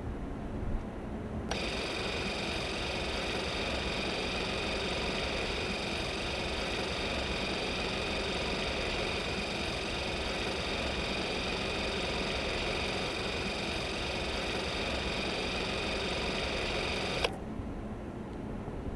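Super 8 film camera running: a steady whirr of its motor and film transport that starts suddenly about a second and a half in and cuts off sharply near the end.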